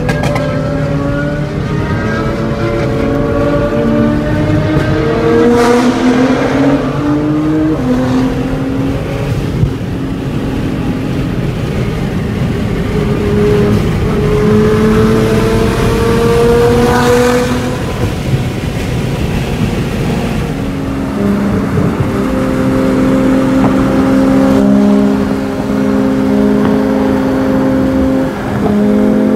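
Nissan GT-R R35's twin-turbo V6 heard from inside the cabin under hard acceleration at highway speed, climbing in pitch and dropping with upshifts twice, then holding a steadier drone near the end. Road and wind noise run underneath.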